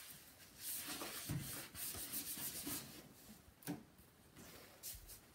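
Hand wiping the plastic side casing of a CRT monitor with a cleaning wipe, quiet irregular rubbing strokes, with one light click a little past the middle.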